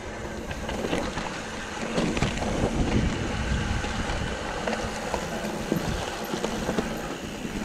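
Mountain bike riding down a dirt trail: wind on the microphone with the rumble of the tyres and the bike rattling, and scattered knocks over rough ground.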